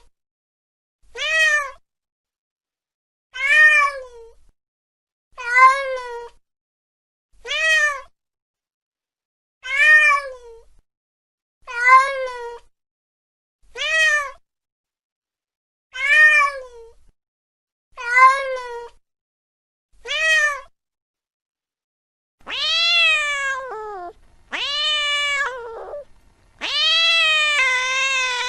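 Domestic cat meowing: about ten short meows spaced about two seconds apart, each rising and then falling in pitch, followed from about three-quarters of the way through by longer, drawn-out yowls.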